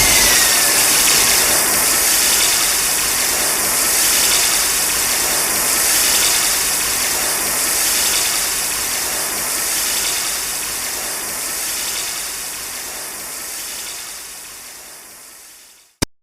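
Kiryu (Mechagodzilla) sound effect from the 2002–2003 Godzilla films: a loud, steady mechanical rushing hiss that swells gently every couple of seconds and slowly fades out over the last few seconds, ending with a short click.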